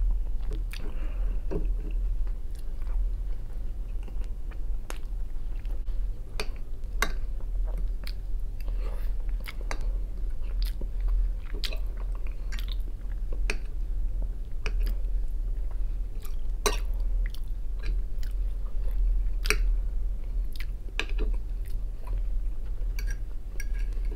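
Close-up sounds of a person chewing and eating fried potatoes, with many short, sharp mouth clicks and smacks scattered through. A fork clinks now and then on a china plate, over a steady low hum.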